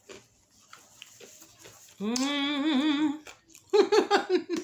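A woman's drawn-out, wavering "mmm" hum of enjoyment while eating hot wings, about two seconds in and lasting just over a second. Near the end comes a quick run of short hummed "mm-mm" sounds. Faint mouth clicks from chewing come before the hum.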